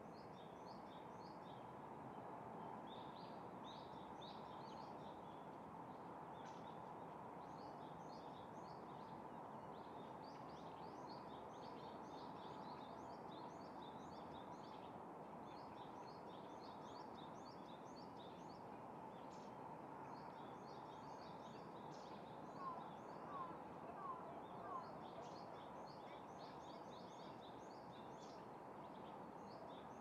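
Faint outdoor ambience: a steady hum of distant noise under continuous high-pitched twittering of many small birds, with four short, slightly louder bird calls about three-quarters of the way through.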